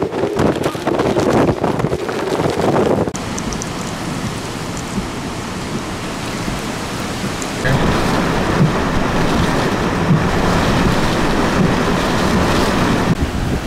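Hurricane wind and heavy rain. It gusts and buffets the microphone for the first few seconds, then settles into a steady rush of wind and rain that grows louder about eight seconds in and eases near the end.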